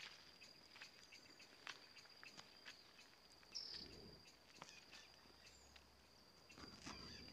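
Near silence: a faint, steady, high insect trill in the background, with a few soft clicks.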